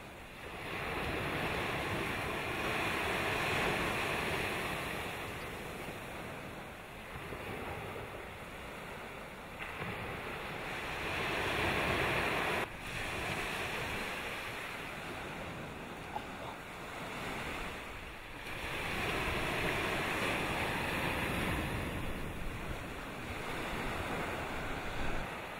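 Wind buffeting the microphone over the wash of the sea, rising and falling in surges a few seconds long. It changes abruptly twice.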